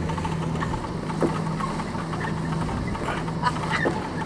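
Deck sounds of a crew hauling a halyard to raise a wooden schooner's sail: a steady low hum that breaks off now and then, faint voices, and a few short knocks.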